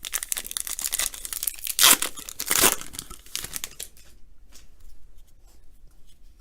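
A baseball card pack's wrapper being torn open and crinkled: dense crackling for about four seconds, with the two loudest rips around two seconds in, then only light rustling.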